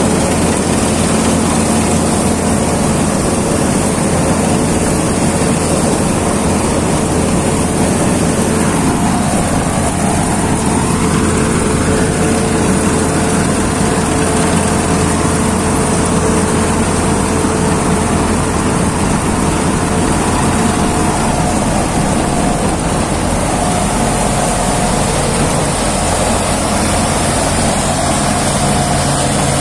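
Deutz-Fahr combine harvester running steadily under load while cutting and threshing wheat, its engine and threshing machinery making a constant drone.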